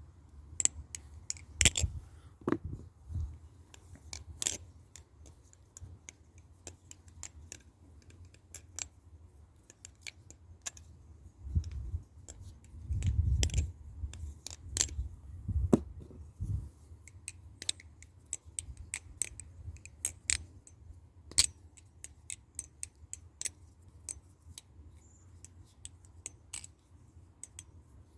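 Balisong (butterfly knife) being flipped and handled: sharp, irregular metallic clicks and clacks as the handles swing around and knock together, with a few duller handling thumps about halfway through.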